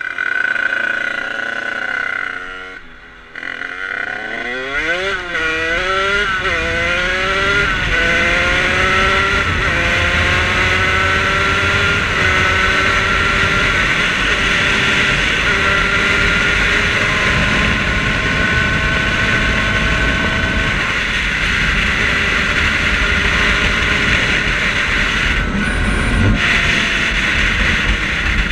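Two-stroke Rieju MRT moped engine, its 50 cc Minarelli AM6 bored out with an 86 cc Top Alu aluminium cylinder kit, revving hard. It dips briefly, then pulls away and climbs through the gears in a series of rising whines, each broken by a short drop at the shift. It then holds a steady high note at cruising speed with wind rush on the helmet camera, easing off for a moment near the end.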